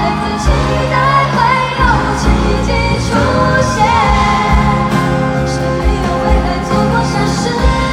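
Live pop ballad: a woman sings the melody over full band accompaniment with a steady drum beat, amplified through an arena PA system and heard from the audience seats.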